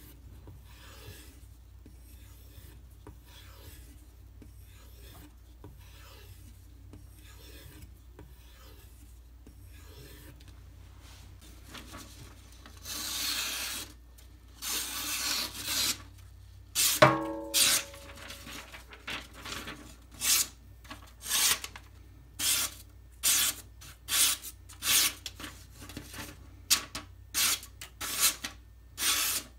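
Steel knife blade stroked edge-trailing along a hard leather strop charged with CBN emulsion, a faint regular scraping that becomes much louder about halfway through. A single sharp clink rings out shortly after, and quicker, short strokes follow.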